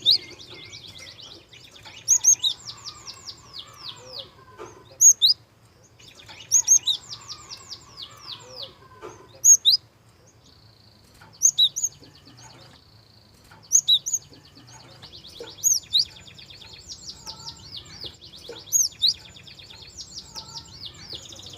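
Gelatik songbird singing: repeated rapid trills of fast downward-sweeping high notes, broken by loud sharp chips about every two seconds.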